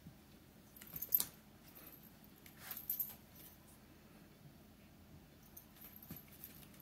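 A cat playing with a fishing-pole wand toy, giving faint clicking and rattling in two short bursts, about a second in and again about three seconds in, with a few lighter ticks near the end.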